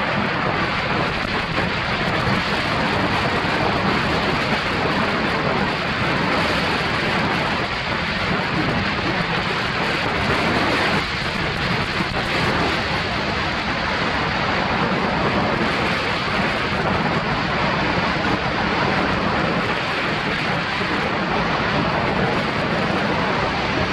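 Steady rushing noise of skiing downhill: wind buffeting the microphone, with skis sliding and scraping over groomed snow.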